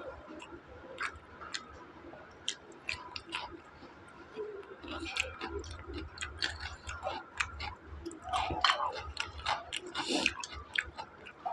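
A man chewing food close to a clip-on microphone, with many short wet clicks and smacks. The smacks grow louder and closer together for a couple of seconds toward the end.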